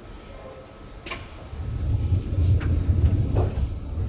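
Sliding passenger doors of a Seibu 2000 series electric train working: a sharp click about a second in, then a low rumble that builds and carries several knocks.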